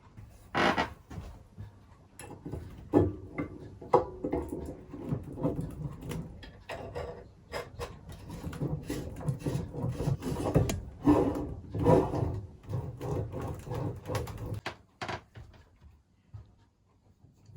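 Irregular clicks, knocks and rattles of bicycle parts and tools being handled, going on busily and stopping near the end.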